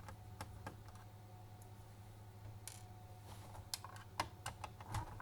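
Faint, irregular clicks and taps of a small screwdriver working on tiny screws in a laptop's plastic chassis, coming more often in the last couple of seconds, over a low steady hum.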